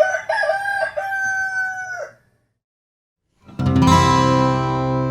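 A rooster crows once, a call of about two seconds that drops in pitch at the end. After a short silence an acoustic guitar chord is struck about three and a half seconds in and rings on as music starts.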